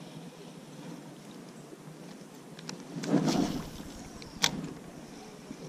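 Handling noise as a float rod is swept up to strike: a brief rustling whoosh with a low rumble about three seconds in, then one sharp click about a second later.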